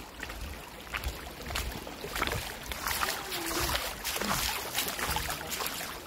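Running stream water splashing over rocks, with irregular splashes throughout.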